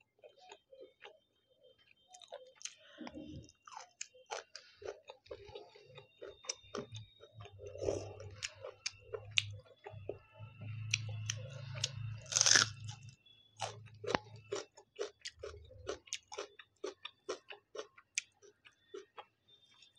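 Close-miked chewing and crunching of hand-fed mouthfuls of rice with curry, fried pork and raw red onion, in a steady run of wet, crackly chews. The loudest single crunch comes about twelve seconds in.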